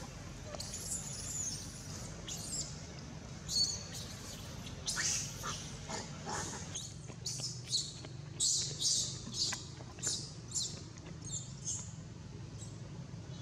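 A baby long-tailed macaque crying in a string of short, high-pitched squeals. The squeals come more often from about five seconds in and thin out near the end.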